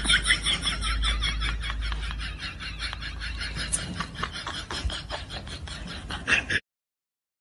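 A rapid run of laughter, about six short laughs a second. It fades steadily and then cuts off abruptly near the end.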